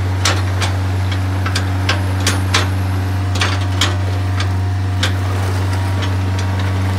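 Komatsu PC50MR mini excavator's diesel engine running steadily, with irregular sharp metallic clanks and knocks as the machine swings and its boom and bucket move.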